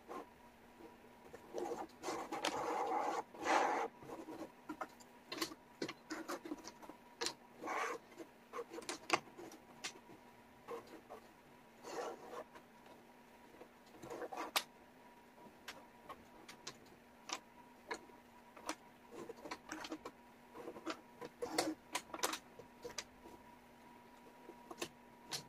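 Wooden jigsaw puzzle pieces clicking and scraping on a tabletop as hands shuffle, pick up and set down pieces, in irregular light taps with a longer stretch of sliding and rustling a few seconds in.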